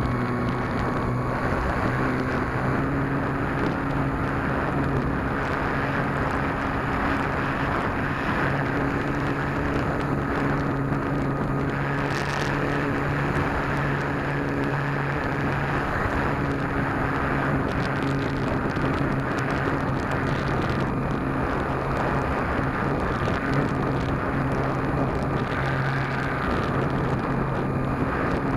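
GWS Beaver RC plane heard from its onboard camera in flight: the Mega 16/15/8 electric motor spinning an APC Slow Flyer 10x7 propeller at a steady throttle, a low propeller hum with a thin higher tone over it, and wind rushing over the microphone.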